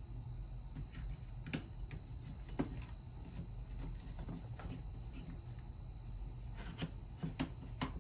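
Light clicks and taps of small chainsaw parts being handled and fitted by hand, with a couple of sharper knocks about a second and a half and two and a half seconds in and a few more near the end.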